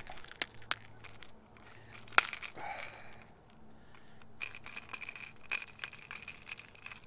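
Fishing pliers working a hook out of a bass's mouth: a few sharp metallic clicks, the loudest about two seconds in, with light rattling and scraping of the hook and lure.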